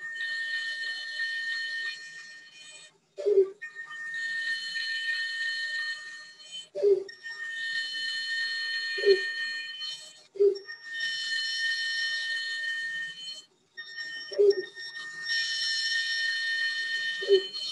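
Bandsaw running and cutting plywood through a series of short kerf cuts: a steady high whine over a hiss, dropping out briefly several times, with a short low tone breaking in between the stretches.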